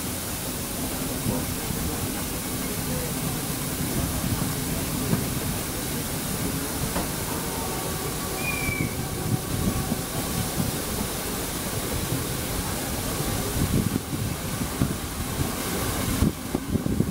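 A steam-hauled train running, heard from a carriage window of a train behind DR class 44 steam locomotive 44 1486-8: a steady rush of running noise with dense low knocking from the wheels and locomotive. There is a brief high squeak about eight and a half seconds in, and the knocking grows louder and more uneven near the end.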